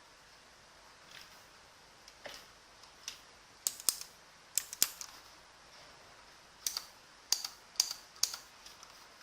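Keys on an Element Z77 mechanical keyboard with clicky blue Outemu switches being pressed one at a time: about a dozen sharp clicks at an uneven pace, some in quick pairs, with short gaps between.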